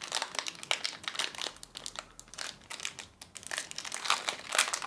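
Foil booster pack of trading cards being handled and torn open, with irregular crinkling and crackling of the wrapper.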